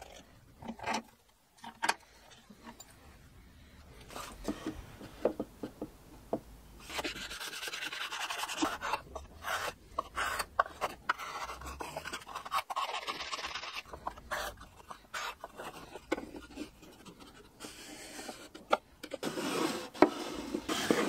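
Small metal hand plane shaving the edges of a solid cherry drawer box on a wooden bench: a run of rasping strokes mixed with knocks of wood on wood. Near the end, a wooden drawer scrapes as it slides into its plywood opening.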